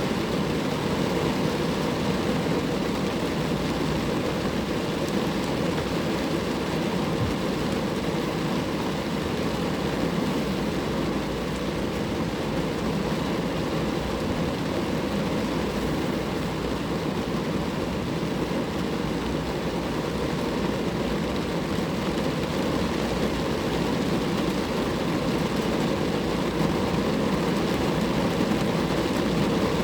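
Steady rain falling on a car, an even patter of drops on the body and glass without any letup.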